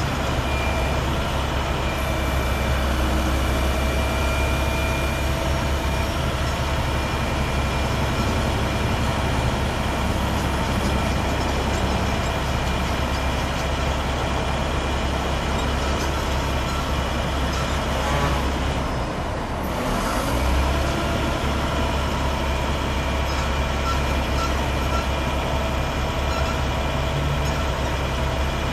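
International 7400 bucket truck's 7.6-litre six-cylinder DT466 diesel running steadily with a deep hum and a steady whine, while the Altec aerial boom is lowered toward its stowed position. The sound briefly dips about two-thirds of the way through, then picks back up.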